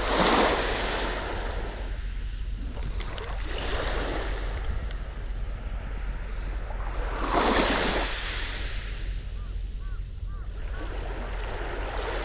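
Small waves washing up on a sandy beach in regular surges about every four seconds, the strongest near the start and about seven seconds in.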